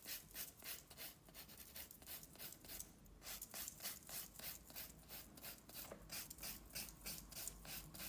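A 180-grit nail file rubbing back and forth across a natural fingernail in quick, even strokes, about four a second. The file is taking the shine off the nail plate with light pressure.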